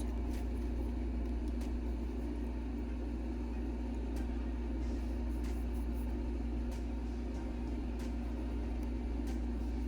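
Steady low room hum with a few faint, light clicks scattered through it.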